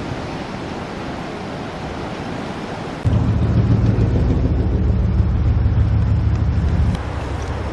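Blizzard wind rushing across the microphone. About three seconds in it switches abruptly to a louder low rumble with the hiss gone, which drops back again near the end.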